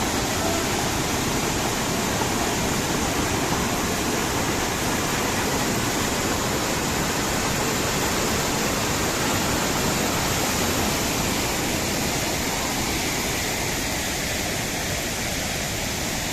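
Waterfall pouring down in a steady, even rush of water noise.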